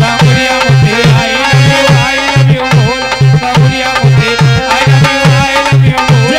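Instrumental passage of languriya folk music: hand drums beating a steady rhythm under a sustained keyboard melody with sliding notes.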